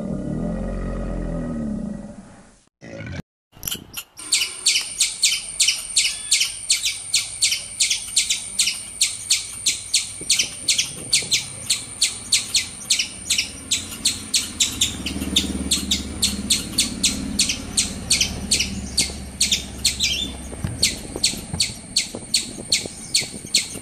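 Squirrel giving its alarm call: a fast, even series of sharp high chirps, about three a second. It follows the tail end of a low, grunting animal call.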